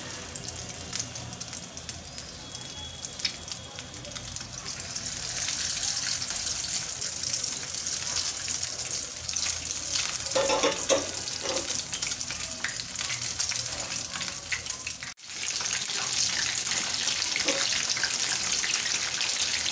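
Batter-coated Bombay duck (loitta) fish fillets frying in hot oil in a pan: a steady sizzle and crackle that grows louder about five seconds in as more pieces go into the oil. There are a few brief clatters midway and a short break a little before the end.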